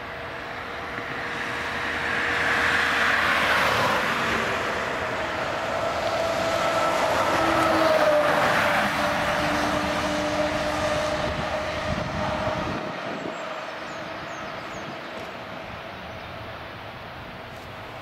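A motor vehicle passes close by. Its noise swells over the first few seconds, peaks, and drops in pitch as it goes past, then fades slowly away.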